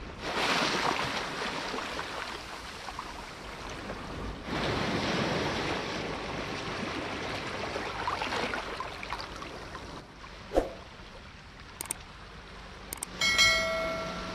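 Shallow sea waves washing in over sand and around rocks, with two big surges: one right at the start and one about four and a half seconds in. It quietens later, with a single knock. Near the end come a few clicks and a short ringing electronic tone.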